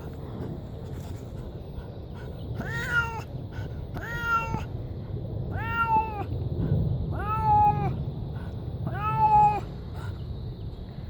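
A domestic cat shut in a carrier, meowing loudly and repeatedly: five drawn-out meows about one and a half seconds apart, each rising and falling in pitch. The cat is unhappy and protesting at being confined.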